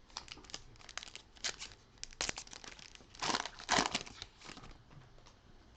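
Foil wrapper of a Contenders football trading-card pack crinkling and tearing as it is opened, in irregular crackly rustles that are loudest about three seconds in.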